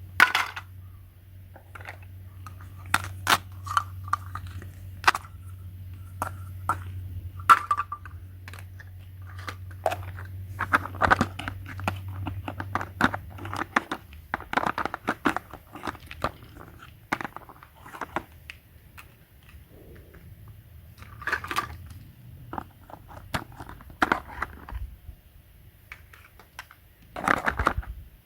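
Scattered clicks, knocks and crinkling of small objects being handled, over a low steady hum that stops about fourteen seconds in.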